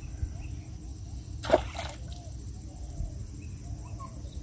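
A single short splash in shallow water about one and a half seconds in, over scattered bird chirps.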